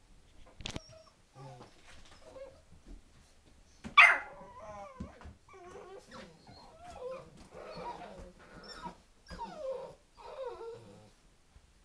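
Nine-week-old puppies whining and yipping, a string of short pitched cries one after another, with the loudest, sharpest yelp about four seconds in.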